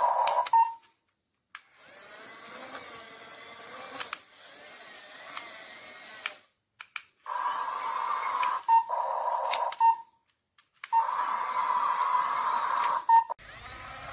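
Small electric gear motors of a toy RC excavator whining in bursts of one to three seconds, stopping and starting as it is driven, with a quieter stretch of motor sound between them.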